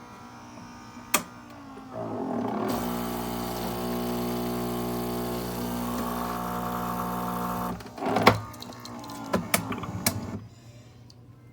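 Gaggia Brera super-automatic espresso machine running its motor for about five seconds, a steady mechanical hum that builds up about two seconds in and stops sharply. Single clicks and knocks come before and after it.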